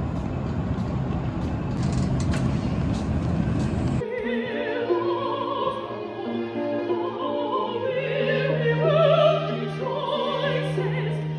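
For about the first four seconds a dense, noisy din; then an abrupt change to a small string ensemble of violins and cello playing a classical piece, with a woman singing in an operatic style with vibrato.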